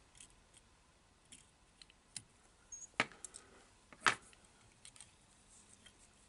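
Small scissors clicking and snipping as the excess marabou is trimmed off a fly on the hook: a few faint scattered clicks, with two louder sharp clicks about three and four seconds in.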